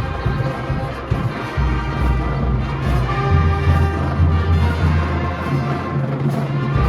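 Marching band playing a parade tune: brass instruments over drums, with long held low bass notes.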